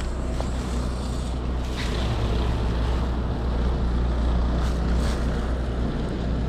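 Steady low rumble of idling city traffic and wind on the microphone in a snowstorm, swelling slightly in the middle, with a few brief faint hisses.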